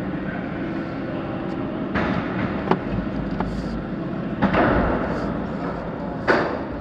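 Steady car road hum heard from inside the cabin, with sharp knocks from about two seconds in and two heavier clunks near the end as the tyres roll over the steel plates and joints of a ferry ramp.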